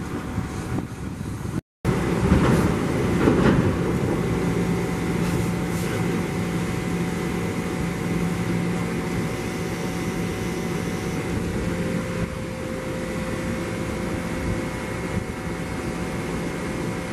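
Ford F450 bucket truck running steadily, with a faint steady high tone over the engine noise. The sound drops out briefly before two seconds in, then comes back louder and settles.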